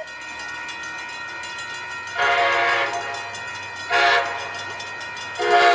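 Amtrak locomotive's air horn sounding the grade-crossing signal as the train approaches at speed: a long blast of about a second, a short blast, then another long blast starting near the end, over the low rumble of the oncoming train.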